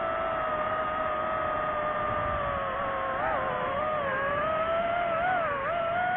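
Drone motors and propellers whining at a steady pitch that dips and rises several times in the second half as the throttle changes.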